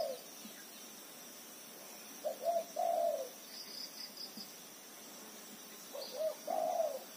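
A dove cooing: a low two-part coo phrase repeated three times, about every three and a half seconds. A short run of high chirps comes between the first two phrases, over a faint steady high insect drone.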